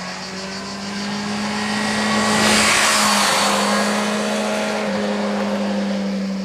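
Yamaha FZ6 Fazer S2's 600 cc inline-four engine held at steady high revs as the motorcycle passes close by. It swells to its loudest about two and a half to three seconds in, then fades as the bike rides away.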